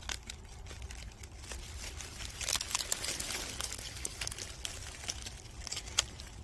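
Faint rustling and crackling of dry leaf litter and brush being disturbed, a scatter of small irregular crackles with one sharper snap about six seconds in.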